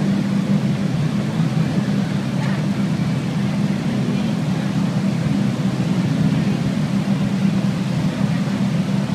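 Ferrari engines idling in a line of waiting cars, a steady low running sound with no revving.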